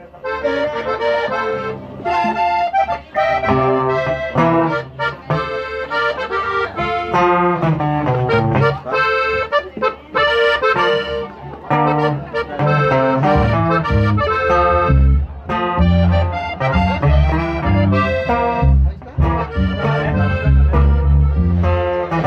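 Live norteño band music led by accordion, playing a fast run of melody over a bass line; the bass notes grow heavier about halfway through.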